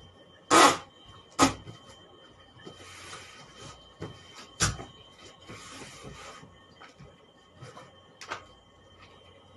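Packing tape being pulled off its roll and worked onto a cardboard box. There are a few short, sharp noises, the loudest about half a second in, and two longer noisy pulls around three and six seconds in.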